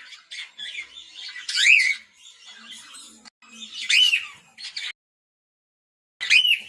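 Male cockatiel calling: loud whistled calls that rise and fall in pitch, about one every two seconds, with softer chatter between them. A pause of about a second comes before one more call near the end.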